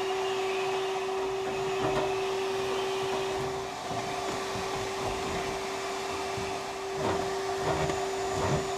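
Handheld car vacuum running with a steady whine, sucking lint out of a clothes dryer's vent duct. There are a few light knocks about two seconds in and near the end.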